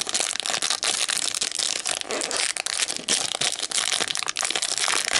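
Small plastic toy packet crinkling and crackling continuously as fingers twist and pull it open.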